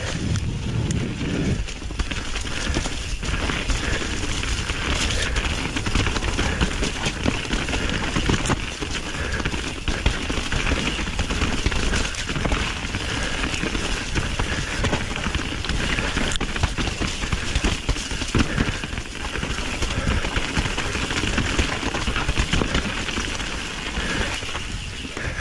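Steady rushing noise with dense crackling through it and a gusty low rumble of wind on the microphone, without a break.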